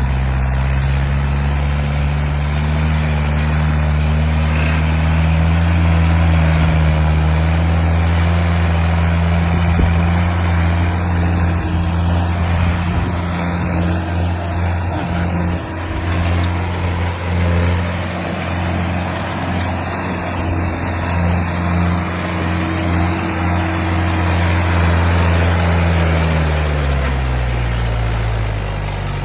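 Mahindra tractor's diesel engine running steadily at raised speed, its pitch sliding down toward idle near the end.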